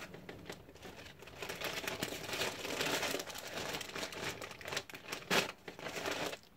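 Plastic wrapping crinkling as it is handled, with sharp crackles, growing louder about a second and a half in.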